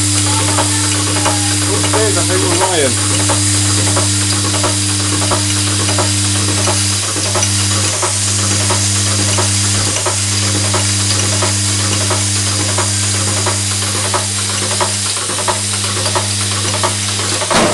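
Vibratory bowl feeder running, with a steady low electromagnetic hum and a dense rattle of small plastic parts jittering along its spiral track. The hum breaks off for a moment several times, and there is a short clatter near the end.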